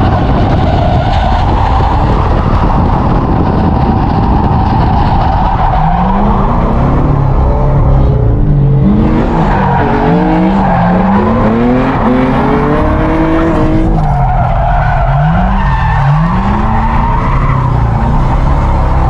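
Drift car engine revving up and down again and again, with its tyres squealing as it slides.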